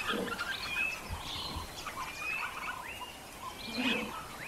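Wild birds chirping and calling: a scatter of short chirps and whistled notes, some sliding up or down in pitch.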